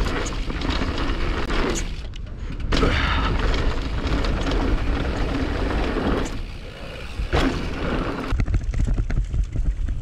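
Mountain bike riding fast down a dirt trail: wind buffeting the body-worn camera's microphone, with the tyres on dirt and the bike's chain and frame clattering over rough ground. There are two short easings, around two seconds in and again past six seconds.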